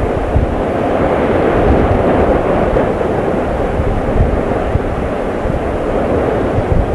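Volcanic eruption of Mount Lewotobi Laki-laki: a steady, loud deep roar with an uneven low rumble underneath.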